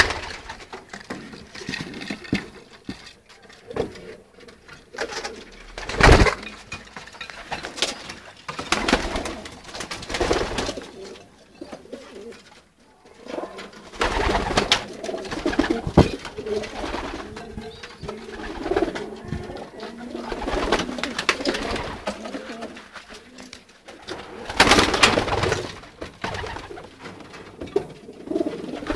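Racing pigeons cooing in a loft, a near-continuous run of low, throaty cooing, with a few louder noisy bursts breaking through.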